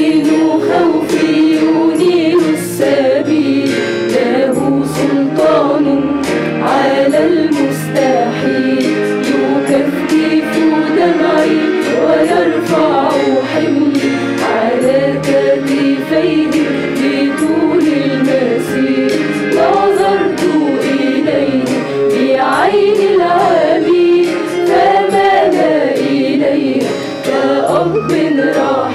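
Mixed choir of men's and women's voices singing an Arabic Christian hymn together.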